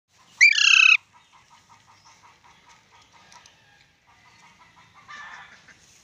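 Alexandrine parakeet giving one loud, harsh screech about half a second in, followed by a run of faint, quick repeated notes and a second, shorter and weaker call near the end.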